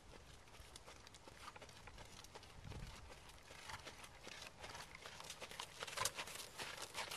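Horse's hoofbeats on a sand arena, soft and irregular, getting louder over the last couple of seconds as the horse comes close.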